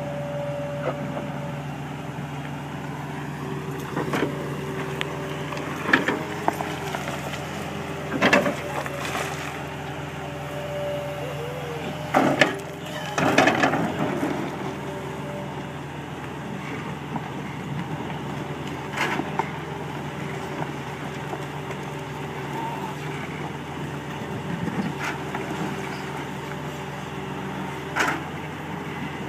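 Caterpillar tracked excavator running steadily while it digs. Its bucket knocks and clanks against rock and soil several times, loudest about halfway through.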